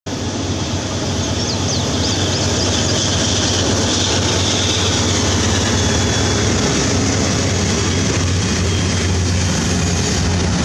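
Freight train's diesel locomotives passing close by: a steady, loud low engine drone with wheels rumbling on the rails. Double-stacked container cars follow the engines.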